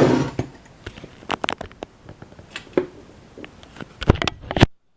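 Small metal clicks and taps from handling the opened lock and the lock picks, irregular, with a quick cluster of knocks near the end before the sound cuts off suddenly.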